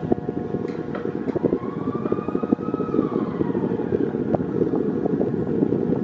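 Wall fan running at its lowest speed with a heavy desk-fan blade fitted; its airflow buffets the microphone as a steady rushing. A faint tone rises and falls in pitch in the middle.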